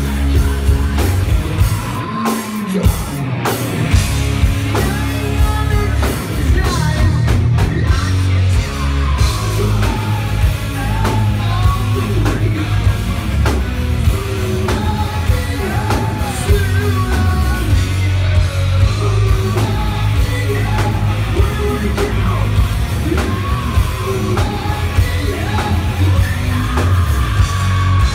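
Live heavy rock band playing loud: distorted electric guitars, bass, drums and keyboard, with a singer's voice yelling and singing over it. A low note slides down about two seconds in.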